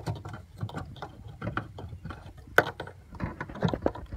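Irregular plastic clicks and knocks from a wiring harness connector and cables being handled behind a car's rear light assembly, with one sharp click about two and a half seconds in.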